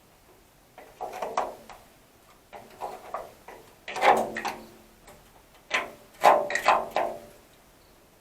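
Irregular clusters of sharp knocks and clatters, four bursts with quiet gaps between them, the sound of parts or tools being handled.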